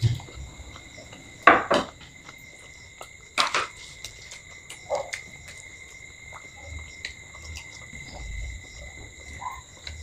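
Eating at a table: a few short, sharp crunches and clatters as crisp puchka shells are broken open by hand and dishes are handled, the loudest two about a second and a half and three and a half seconds in. Under them a steady high-pitched whine runs throughout.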